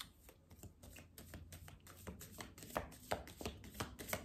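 Tarot cards being shuffled by hand: a rapid run of soft card flicks and taps that grows busier and louder about halfway through.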